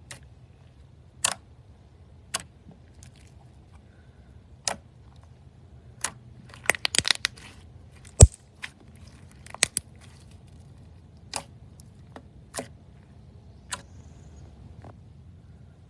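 Slime being pressed and squeezed, giving scattered sharp pops and crackles: a quick run of them about seven seconds in and the loudest single pop just after.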